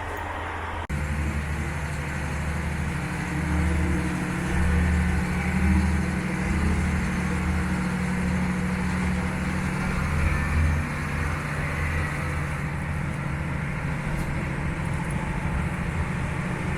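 Local train running: a steady low hum with a pulsing rumble underneath.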